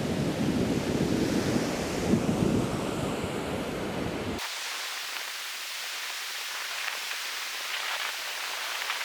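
Wind buffeting the microphone with a heavy rumble over surging water. About four and a half seconds in, an abrupt cut leaves only a steady, even hiss of rushing water and surf.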